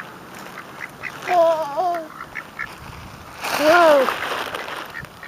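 Ducks and geese calling at a pond: a wavering call about a second in, then a louder, harsher call about three and a half seconds in.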